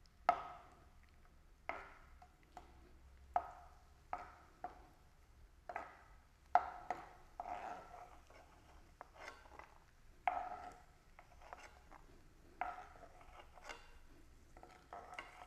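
A metal spoon knocking and scraping against a small metal pan while raisins are stirred and fried in ghee. The uneven strokes come roughly once a second, each leaving a short ring, and the first is the loudest.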